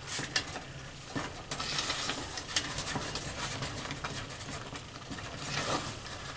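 Wooden spatula stirring and scraping thick milk gravy in a Bayou Classic 2-quart cast iron Dutch oven: irregular soft scrapes and small clicks as the gravy comes back to a boil. A steady low hum runs underneath.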